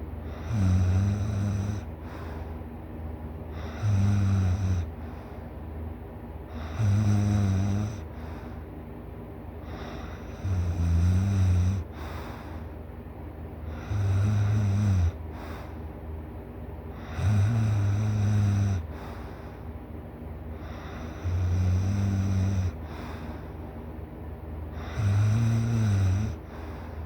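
A person snoring loudly in deep sleep: about eight low-pitched snores, each a little over a second long, coming every three to four seconds with quieter stretches between.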